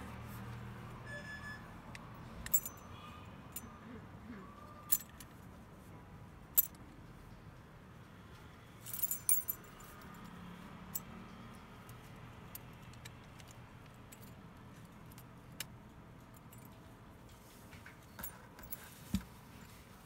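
Metal parts of a cylindrical lever door lockset clicking and clinking as it is handled, with its key and latch: scattered sharp clicks, a quick run of several about nine seconds in.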